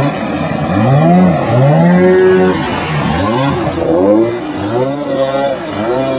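Wildcat Picklefork stand-up jet ski's Cuyuna two-stroke engine revving up and falling back again and again, about once a second, as the craft is thrown through tight turns. Water spray hisses against the hull.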